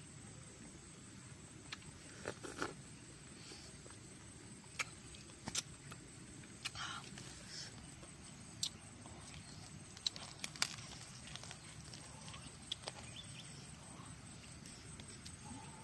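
Scattered sharp clicks and light rustling from hands handling red dragon fruit on the cactus stems, over a faint outdoor background.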